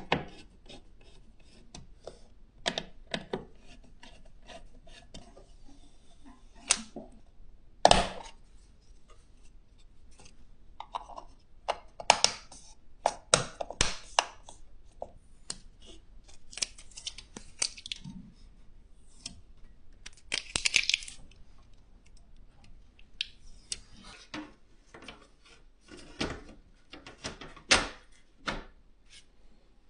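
Hands fitting an AIO liquid cooler's pump head onto the CPU and screwing it down: irregular clicks, taps and knocks of small metal and plastic parts, with a brief rustle about two-thirds of the way in.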